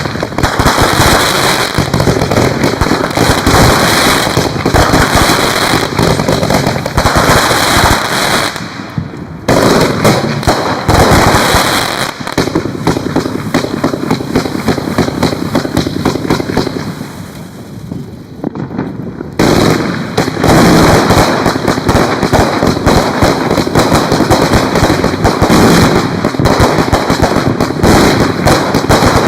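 Fireworks going off in a dense, continuous barrage of rapid bangs and crackle. It eases briefly about two-thirds of the way through, then picks up again at full strength.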